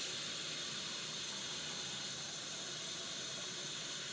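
Kitchen tap running steadily, water pouring into a container as it fills.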